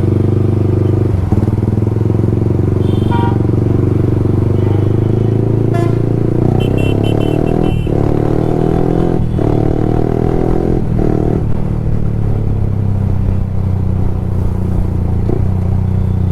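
Yamaha R15 V3's single-cylinder engine running hard through an aftermarket exhaust while riding. Around the middle its note climbs several times, with short breaks in between.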